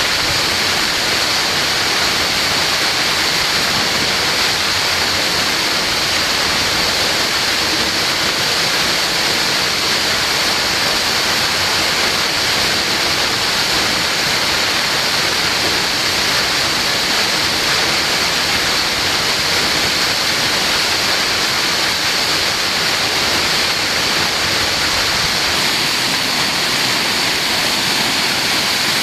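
Steady, loud rush of fast-flowing water, unbroken and even throughout.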